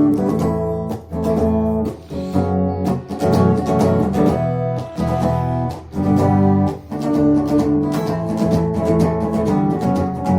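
Acoustic guitar strumming chords in a steady rhythm as an instrumental intro to the song.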